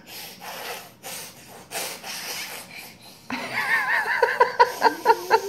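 A woman laughing: breathy, mostly silent laughter at first, turning about three seconds in into high-pitched voiced laughter in quick pulses.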